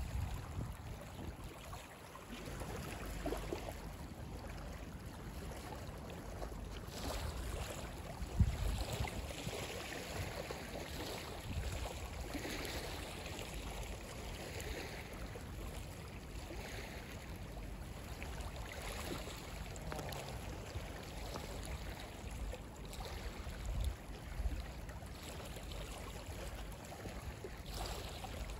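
Small waves lapping and trickling over a pebble shore, with wind buffeting the microphone.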